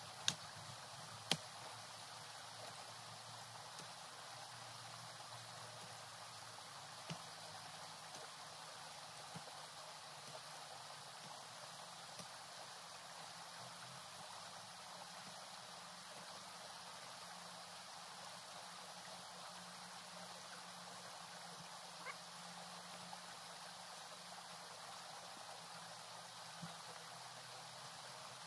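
Steady outdoor hiss with a few sharp knocks of hand digging tools striking the soil, the loudest two about a second apart near the start.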